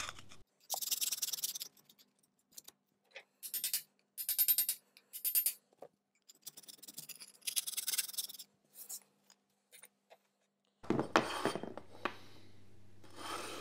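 Old wood chisel scraping and shaving plaster off the bottom of a wall, in a series of short, irregular scraping strokes with pauses between them.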